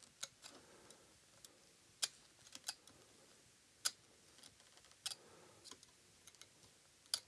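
Faint, irregular small clicks and taps, about a dozen spread over several seconds, from hands working a syringe over a circuit board.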